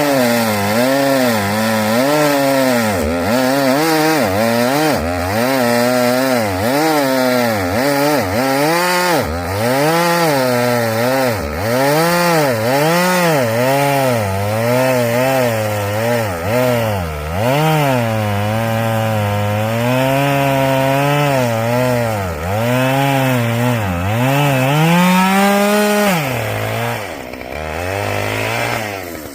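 Chainsaw cutting up a downed tree for firewood, its engine speed rising and falling again and again as the throttle is worked and the chain loads up in the wood. Near the end it drops back to a lower, steadier speed.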